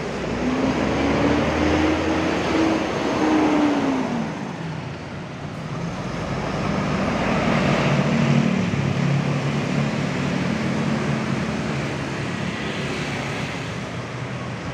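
Mercedes-Benz coach's diesel engine pulling away: its note rises for a few seconds, falls away about four seconds in, then climbs again as the bus drives off, with motorcycles and street traffic around it.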